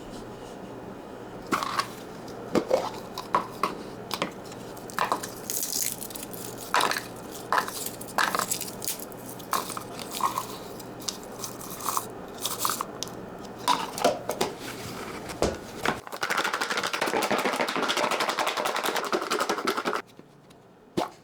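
Food being handled in a kitchen: irregular crisp crunches and tearing sounds, then about four seconds of dense, continuous crackling near the end that stops suddenly.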